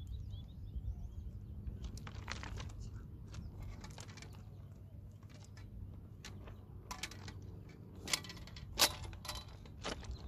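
Rustling and scattered clicks of fishing gear being handled, with two sharper clicks near the end, over a steady low rumble.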